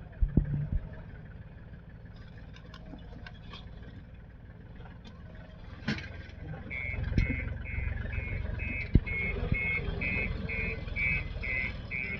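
Heavy machine's diesel engine running, growing louder about halfway through, when a reversing alarm starts beeping about twice a second; a few sharp knocks and clanks at the start and in the middle.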